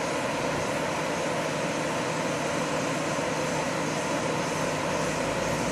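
River water rushing over a wide series of shallow rock ledges, a steady, unbroken rush.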